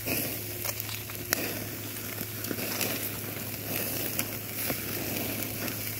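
Chicken thighs sizzling on the grate of a charcoal kettle grill, a steady hiss with scattered sharp pops and crackles from the fat and the coals.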